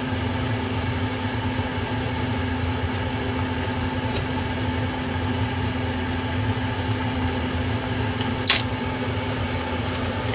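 Steady electric fan hum from the running kitchen appliances, with a single sharp click about eight and a half seconds in.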